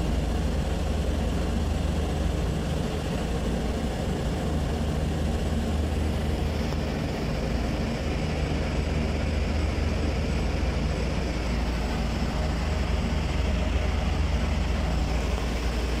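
Steady low hum and rush of a running packaged air-conditioning unit, with no change in pitch or level.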